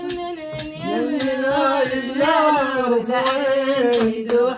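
A woman singing into a handheld microphone in long, held, wavering notes, with scattered hand claps.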